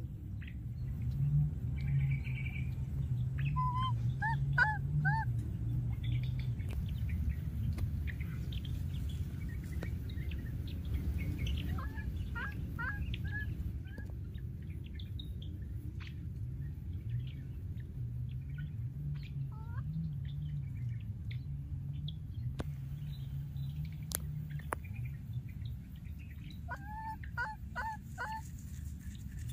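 Baby macaque calling in short, high, squeaky chirps that come in quick runs of three or four, repeated every several seconds, over a low hum.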